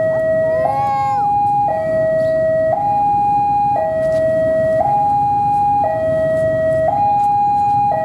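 Electronic two-tone warning alarm alternating steadily between a low and a higher note, each held about a second, over the low rumble of a diesel locomotive. A short chirp sounds about a second in.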